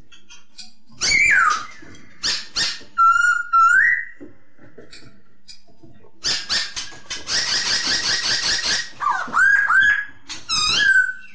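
Poksay hongkong laughingthrush calling: loud whistled notes that slur up and down, and a harsh, rapid chattering run of about two seconds past the middle, followed by more quick whistled slurs.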